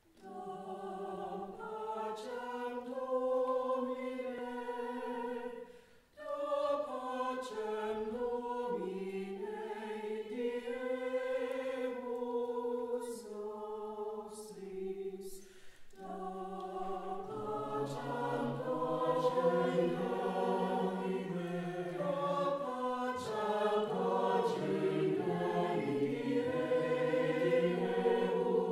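Mixed choir of men and women singing sustained chords, pausing briefly between phrases about six and sixteen seconds in. Lower voices come in more fully from about seventeen seconds.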